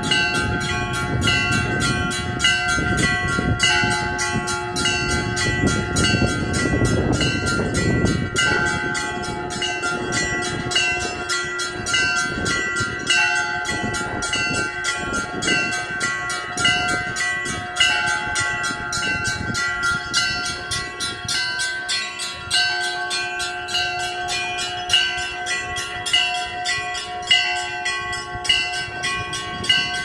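Orthodox church bells ringing a festal peal: a rapid, even run of strikes on the smaller bells over the steady ringing tones of larger bells.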